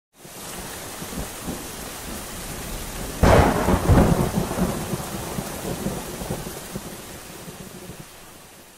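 Steady rain, then a sudden thunderclap about three seconds in that rumbles on and slowly fades away along with the rain.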